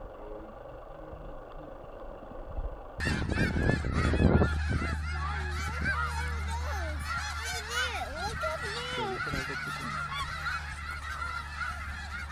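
A large flock of snow geese honking, many calls overlapping at once, starting suddenly about three seconds in over a low steady rumble. Before that there is only faint outdoor quiet.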